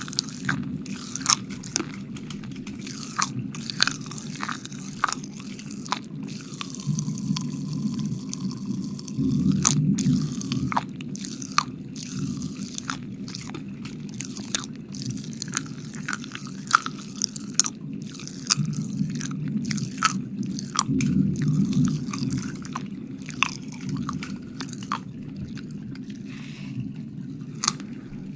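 Close-miked ASMR wet mouth sounds: a rapid, irregular string of wet smacks, clicks and licking noises, over a steady low hum.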